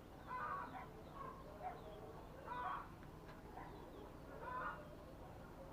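A bird calling in the background: short pitched calls about every two seconds, with fainter chirps between them.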